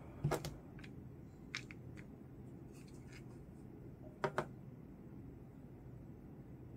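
Small sharp clicks from close handling: two double clicks about four seconds apart, with fainter ticks between, over a steady low hum.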